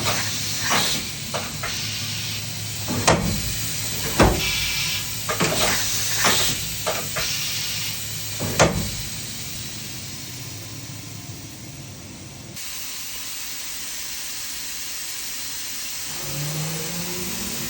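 Makino F5 vertical machining center running with a steady hum and air hiss, with a string of sharp mechanical clunks over the first half. It turns quieter about halfway through, and a rising whine near the end sounds like the spindle spinning up.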